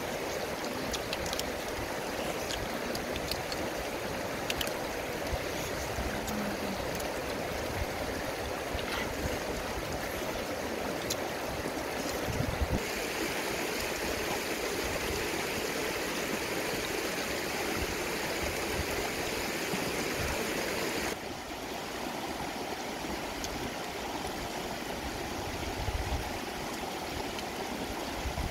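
Shallow rocky river rushing over stones: a steady rush of water whose tone shifts abruptly twice, a little under halfway and about three-quarters through. A few faint clicks sound in the first half.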